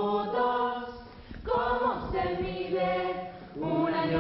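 A small group of young women singing a cappella in harmony, holding long notes, in phrases broken by two short pauses.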